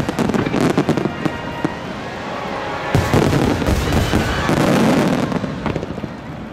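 Large aerial fireworks bursting in quick succession, with dense crackling and rumbling. A sharp bang comes about three seconds in, and the barrage fades near the end.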